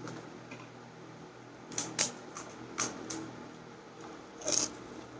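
Crisp panipuri shells cracking and crunching as they are broken open with fingers and bitten. A handful of short sharp crackles are spread through the middle, and the longest comes near the end, over a faint steady hum.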